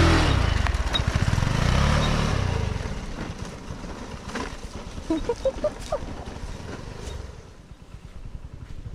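Motor scooter engine revving up and falling back twice as it is ridden over a rough rocky path, then fading as the scooter moves off.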